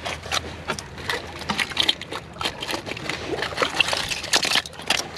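Oyster shells clattering and crunching as gloved hands dig and turn them over in wet mud: a rapid, irregular run of clicks and scrapes.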